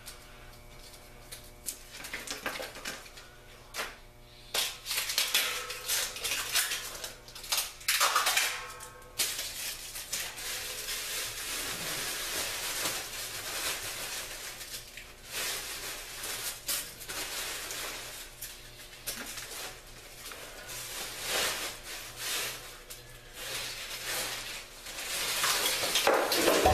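Packaging and parts being handled: irregular rustling and crinkling of plastic and paper, with scattered clinks and knocks.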